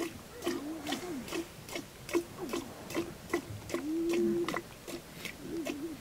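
Sheep bleating in short, wavering calls, with one longer steady bleat about four seconds in. Over the bleats runs a regular series of short sharp clicks or squirts, about two to three a second.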